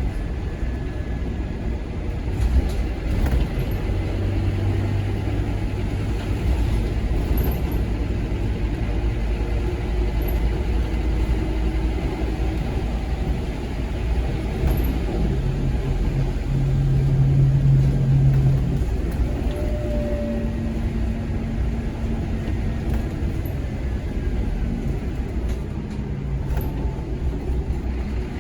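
Scania K230UB Omnilink bus's five-cylinder diesel engine running while the bus is driven, the engine note rising and falling as it pulls through the ZF Ecomat automatic gearbox's gears. It is loudest a little past halfway, under harder pulling.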